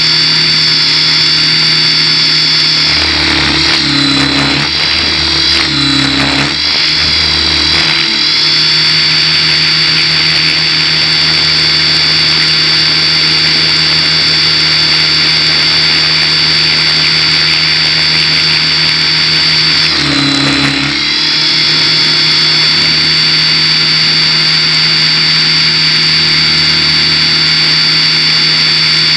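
Align T-Rex 600 Pro RC helicopter's motor and rotor heard from the airframe, a steady high whine over a low hum. The pitch dips and wavers briefly a few seconds in and again about two-thirds of the way through as rotor load changes during manoeuvres.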